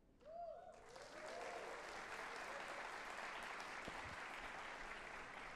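Audience applauding steadily after a percussion piece ends, with a short wavering cheer from a voice or two in the first second as the clapping starts.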